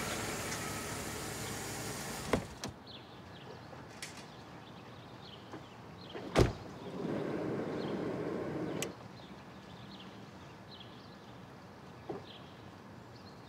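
Music stops a couple of seconds in, leaving quiet street ambience with faint bird chirps. Midway a car door slams with a sharp thud, followed by about two seconds of louder noise. A van's sliding door clicks open near the end.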